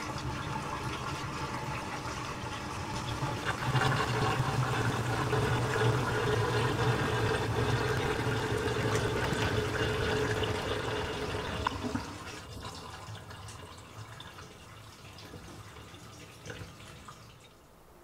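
Water draining out of the tub of an LG TR14WK1 top-load washing machine: a steady rush that grows louder about four seconds in, drops off around twelve seconds as the tub empties, then fades out.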